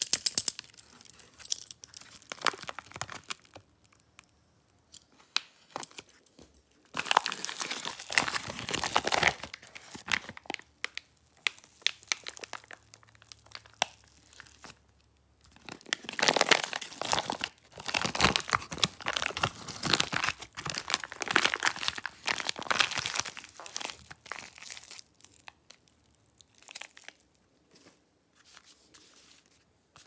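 Foil-lined plastic clay packet crinkling and tearing as it is peeled open and pulled off a block of modelling clay. It comes in three bouts of crackly rustling with quiet pauses between, the longest about halfway through.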